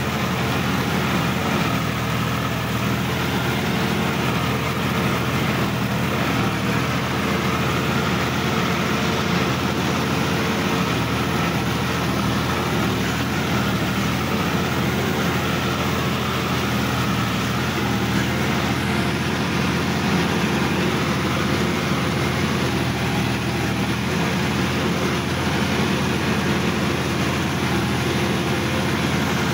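Sonalika DI-50 RX tractor's diesel engine running steadily under load, heard from the driver's seat, as the tractor works a muddy paddy field.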